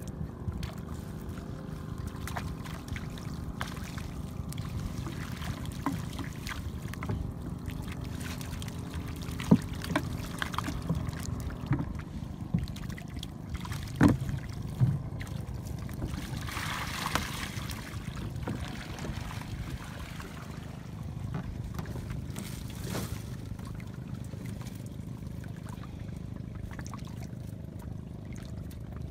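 Water trickling and splashing as a fishing net is worked over the side of a small boat, with small clicks throughout over a steady low rumble. Two sharp knocks come about ten and fourteen seconds in, and a brief rush of splashing a few seconds after the second.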